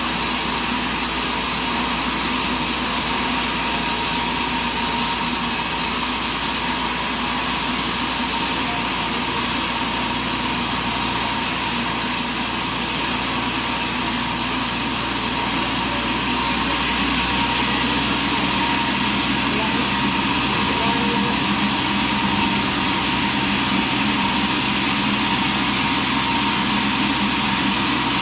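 Sawmill's engine running steadily under a constant drone, its low note changing a little past halfway.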